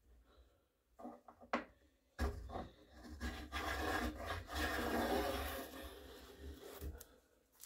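A hand tool scraping and rasping the wood of a rifle stock's barrel channel, removing wood to shape the channel. A few light knocks come first, then about two seconds in a continuous rasping that lasts about four and a half seconds before fading out.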